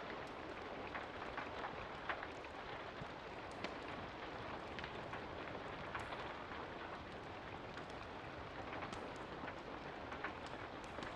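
Steady rain falling, with scattered sharp pops and crackles from a wood fire.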